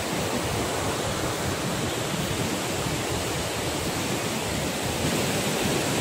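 Sahastrakund waterfall in monsoon spate: the steady rush of a large volume of falling, churning floodwater, even and unbroken throughout.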